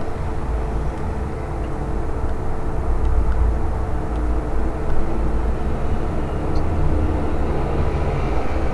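Steady low rumbling background noise with a faint hum and no clear events.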